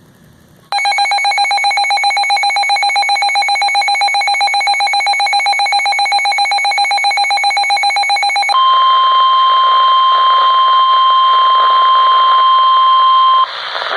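Emergency alert receiver signal: a rapidly pulsing electronic alarm beep for about eight seconds, then a steady single-pitch NOAA Weather Radio warning alarm tone for about five seconds, marking the start of a new weather warning broadcast.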